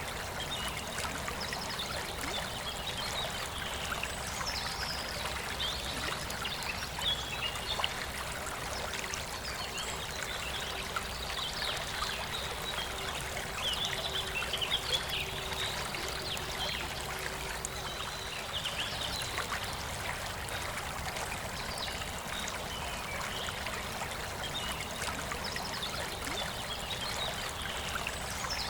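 A river flowing steadily, with birds singing over it in short high phrases throughout.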